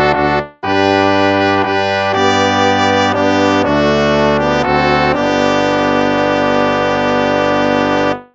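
Instrumental hymn played in a brass sound, in slow held chords that change every second or so. There is a brief break just after the start, and a long final chord that stops just before the end.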